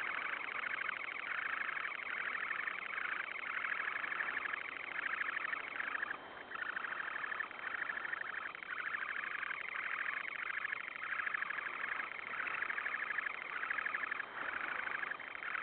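Semipalmated sandpiper giving a long, nearly unbroken buzzy trill with a regular pulse about twice a second, breaking off briefly about six seconds in and near the end. It is the returning parent's display urging its incubating mate to leave the nest.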